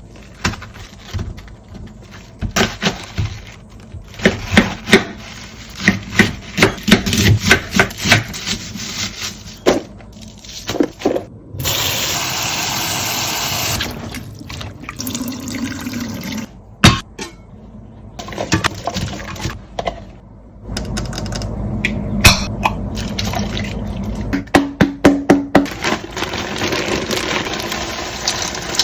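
Kitchen prep sounds for a cabbage vegetable soup. First comes a long run of sharp knocks and clicks, like a knife cutting cabbage on a board. About twelve seconds in, water runs for about two seconds, like the cabbage being rinsed. Later come more knocks, a longer steady rush of water or pouring, and a quick run of clicks.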